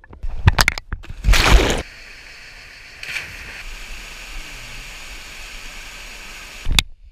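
Loud churning surges of water and bubbles from a plunge into water, heard underwater. Then, about two seconds in, the steady rushing hiss of a small waterfall pouring down a rocky gorge, with a brief surge near the end.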